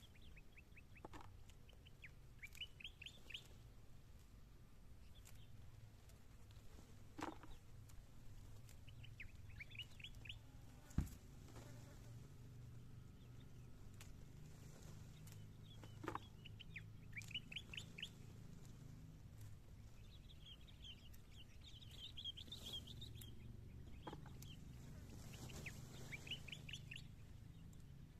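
Songbird singing faint, quick runs of high chirps that repeat every few seconds. A few sharp taps sound through it, the loudest about eleven seconds in.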